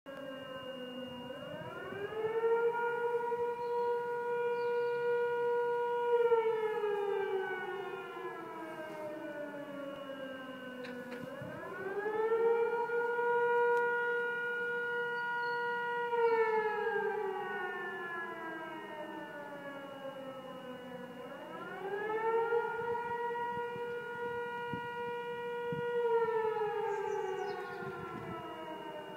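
Civil defence siren wailing as a warning: each cycle rises quickly, holds a high note for about four seconds, then falls slowly, three times over.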